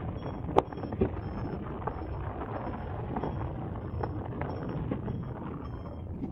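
Wind buffeting the microphone of a camera in paragliding flight, a steady rushing noise, with a sharp click about half a second in.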